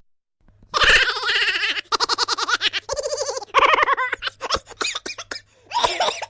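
Laughing voice sound effect: a drawn-out cry, then a run of rapid giggling pulses and short chuckles, with a final burst of laughter near the end.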